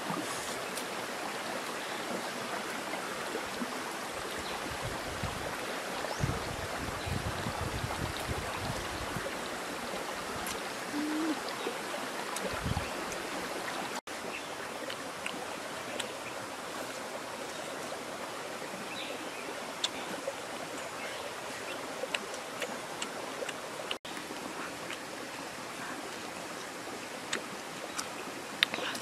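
Steady rush of a forest stream running over rocks, with a few soft low knocks and scattered light clicks.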